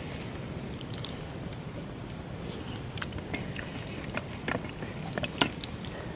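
Scattered light clicks and scrapes of a utensil against the inside of a metal food can, irregular and a little denser in the second half, with one sharper click near the end, over a steady low background noise.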